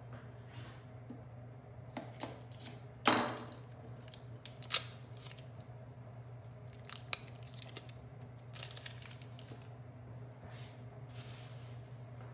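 A stick of butter being unwrapped and portioned: scattered rustling and tearing of the wrapper paper and a few sharp clicks, the loudest a short rasp about three seconds in. A low steady hum runs underneath.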